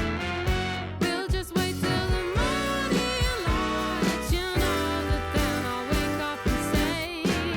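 Background music: a song with a vocal melody over instruments and a steady drum beat.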